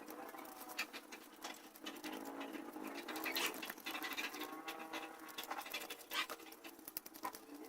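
Irregular small clicks, taps and scratches of objects being handled, with faint pitched sounds wavering underneath.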